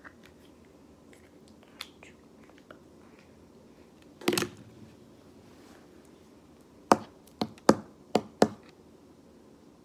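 A single thump about four seconds in, then five sharp taps on a tabletop in quick succession near the end.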